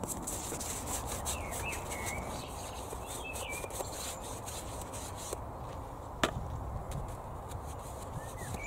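Paintbrush scrubbing back and forth over the wooden slats of a picket fence panel as a coat of fence treatment is brushed on. One sharp tap about six seconds in, and a few faint bird chirps.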